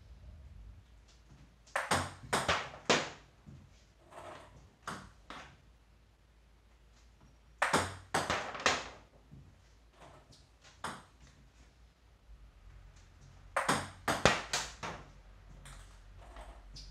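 Table tennis topspin serves: sharp clicks of the ball striking the paddle and bouncing on the table, in quick groups of several clicks every few seconds, with three louder groups and two softer ones between them.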